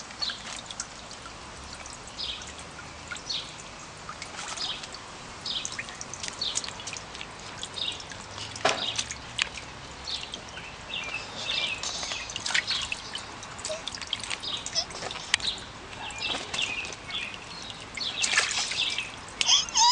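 Water in a paddling pool splashing and dribbling in small, irregular splashes as a baby slaps at it, with a busier run of splashes near the end.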